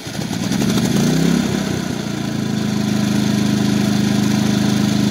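Predator 3500 inverter generator's single-cylinder engine starting on its electric starter: the cranking ends just after the start as the engine catches, slightly flooded from repeated cranking. It surges unevenly about a second in, then settles into a steady run.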